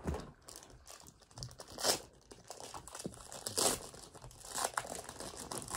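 Foil wrapper of a Pokémon card booster pack being crinkled and torn open by hand, in a few short bursts of crinkling.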